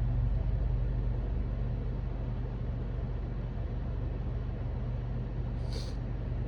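Steady low hum and rumble, with one short breathy hiss about six seconds in.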